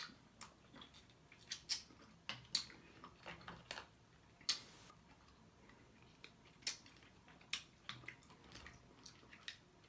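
A person eating seafood close to the microphone: irregular wet lip smacks and chewing clicks, about a dozen scattered through, with one short hissing sound about halfway.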